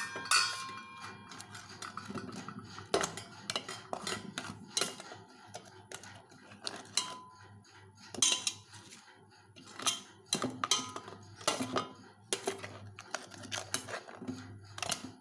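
A steel spoon clinking and scraping against a stainless steel pot while it turns fried pastries in sugar syrup. The clinks are irregular, with a few sharper ones.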